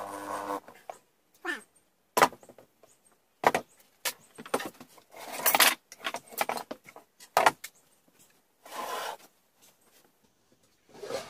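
A corded Black & Decker drill's motor whines briefly as it finishes driving a screw into a wooden box. Then come a string of sharp wooden knocks and clatters, with a short scrape near the end, as the small wooden box is handled.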